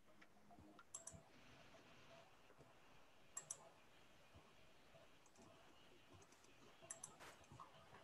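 Near silence with a few faint clicks, coming in small clusters about a second, three and a half and seven seconds in.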